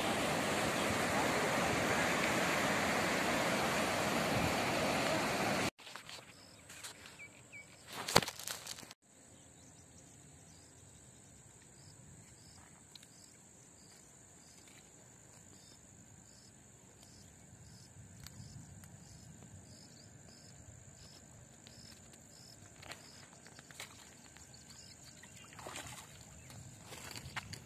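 Water pouring through a dam's spillway gates, a steady rushing noise that cuts off abruptly about six seconds in. After that, a quiet outdoor background with a faint steady high-pitched whine and a few light handling sounds.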